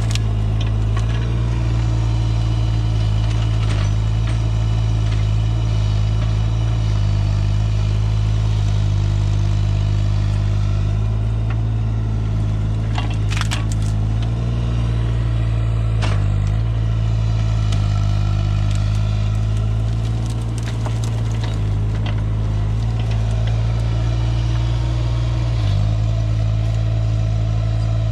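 Diesel engine of a compact earthmoving machine running steadily under light load, its pitch dipping briefly a few times, with a couple of sharp metallic clanks about halfway through.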